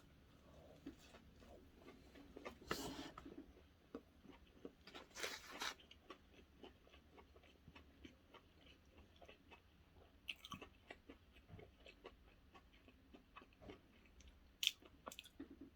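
A person chewing a fried chicken sandwich with a soft buttered bun, close to the microphone: faint, irregular wet mouth clicks and smacks.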